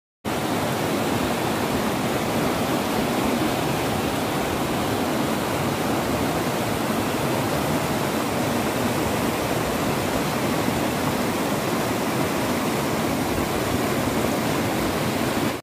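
Rocky mountain stream rushing over stones in white-water rapids: a steady, even rush of water that cuts in abruptly and stops abruptly.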